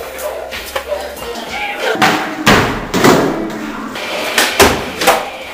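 Skateboard hitting the concrete floor and a wooden box: a series of sharp clacks and slams of deck and wheels, the loudest about two to three seconds in and again near the end.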